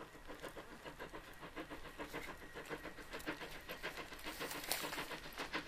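Narrow-gauge steam locomotive NM25 approaching under load, its exhaust beating in a quick, even chuff several times a second and growing a little louder as it comes closer.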